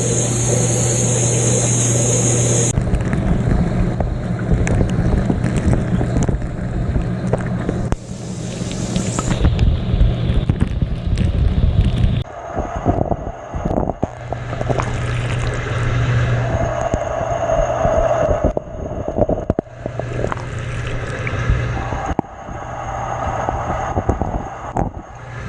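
Dishwasher running a wash cycle, heard from inside the tub: the wash pump motor hums steadily while water from the spray arms splashes and beats against the microphone, surging and dropping away several times.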